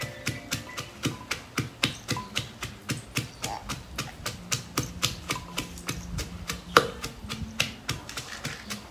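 Wooden pestle pounding garlic and chilies in a Thai clay mortar: a steady run of sharp strikes, about three or four a second, with one harder strike near seven seconds in.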